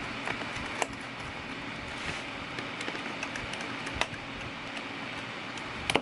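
A precision screwdriver working the screws of a laptop's bottom cover: a few small, sharp clicks, about one and four seconds in and a louder one near the end, over a steady background hiss.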